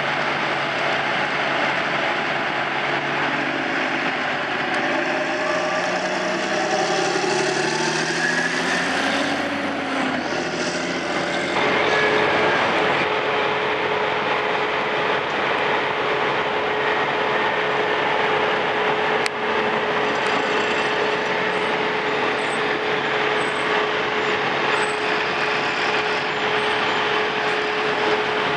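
Heavy diesel engine of a Terra Gator 8133 self-propelled slurry injector running as it drives by, its engine note shifting in pitch as it passes. From about eleven seconds in, a steady machine drone with a constant whining tone.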